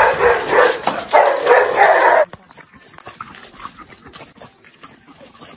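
A dog barking in a quick, uneven run of loud barks, cut off abruptly about two seconds in. Only faint scattered sounds follow.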